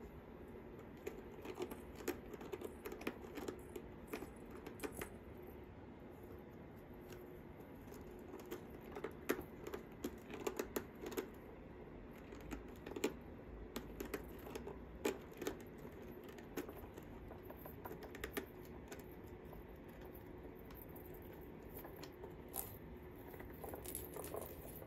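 Persian kittens playing with cat toys: irregular light clicks, taps and small rattles coming in clusters, over a faint steady hum.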